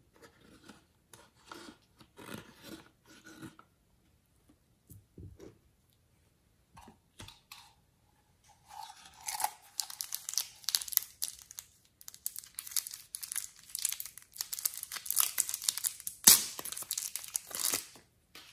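Soft handling and rubbing sounds, then a small plastic packet of clay crinkling and crackling as fingers squeeze and tear at it to push the clay out. The crackling starts about nine seconds in and runs almost to the end, with one sharp loud crack near the end.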